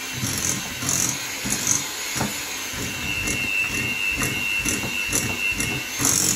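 Electric hand mixer running, its beaters churning a stiff, crumbly butter-and-flour cookie dough in a glass bowl, with a rhythmic knock-and-scrape about twice a second as the beaters work around the bowl. A high whine joins in about halfway.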